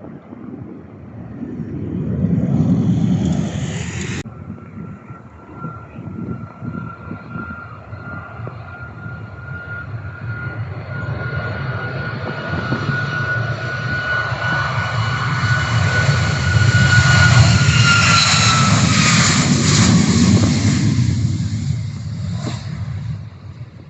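Jet airliner passing close by: a steady engine whine over a low rumble builds to a peak, drops in pitch as the plane goes past, and fades away. Near the start a short rush of noise cuts off suddenly.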